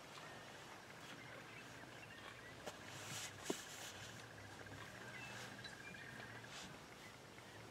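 Faint outdoor bush ambience: a steady high pulsing trill over a low hum. A few soft clicks and a brief rustle come about three seconds in.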